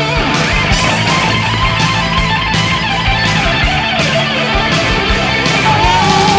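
Rock music led by electric guitar, with a steady beat.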